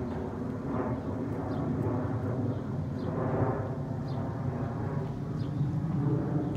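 Outdoor ambience: a steady low rumble with faint, short, high chirps every second or so.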